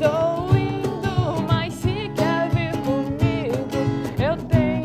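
A woman singing a pop-rock song over a strummed Strinberg acoustic guitar. The sung melody glides and wavers over the steady strummed chords.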